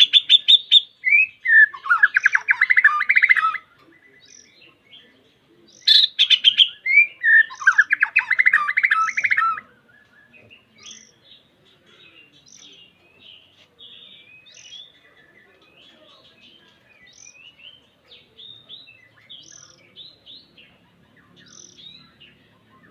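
White-rumped shama (murai batu) singing: two loud song phrases, each opening with sharp high whistles and running into a fast, dense trill, followed by softer, scattered whistled notes.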